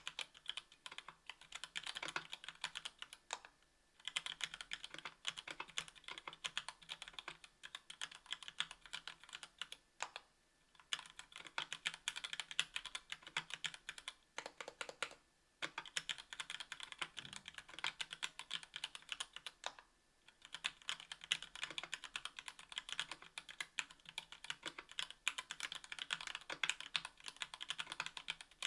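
Continuous typing on a KBDfans Tofu 60% aluminium keyboard with stock Gateron Black Ink linear switches (60 g) on an aluminium plate, with GMK keycaps: a dense stream of keystrokes, broken by short pauses about four, ten, fifteen and twenty seconds in.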